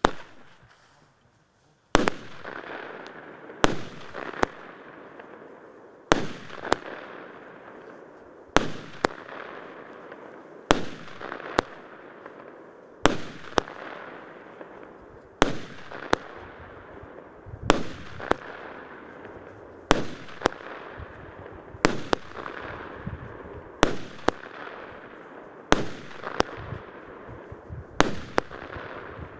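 Pandora C253016 16-shot firework battery firing its shots one after another, about one every two seconds, each shot heard as a pair of sharp bangs about half a second apart. A single bang comes at the very start, then the regular shots begin about two seconds in.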